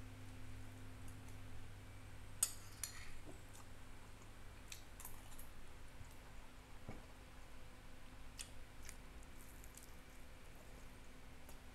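A metal spoon clicking and scraping against a glass plate, the loudest clicks about two and a half seconds in, with quiet chewing and biting of rice and fried chicken between them. A faint steady low hum runs underneath.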